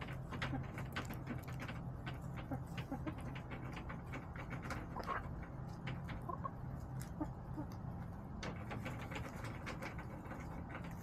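Backyard hens clucking a few times, briefly, among many small taps and clicks, over a steady low hum.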